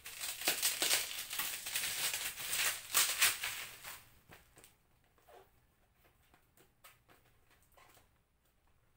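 Plastic bubble-wrap packaging crinkling and crackling as it is cut open with scissors and pulled off a box, for about four seconds; after that only faint light taps from the cardboard box being handled.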